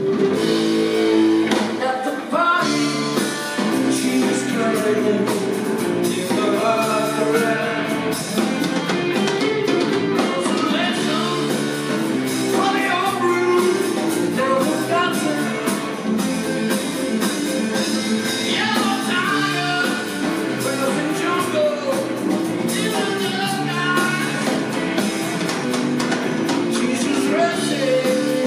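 Live rock trio playing: distorted electric guitar, electric bass and a drum kit, with a lead vocal sung over the band.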